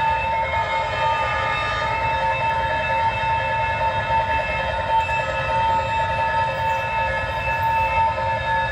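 Railway level-crossing warning bell ringing as a steady, unbroken multi-toned alarm, over the low rumble of a passing diesel-hauled passenger train.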